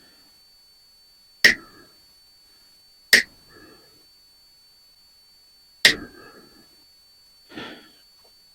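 Metal parts of a ceiling fan being handled while it is scrapped: three sharp metal clanks a second or two apart, each with a brief ring, then a softer clatter near the end.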